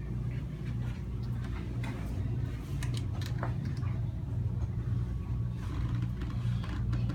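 A steady low engine drone with a slow pulse, with light clicks and knocks over it.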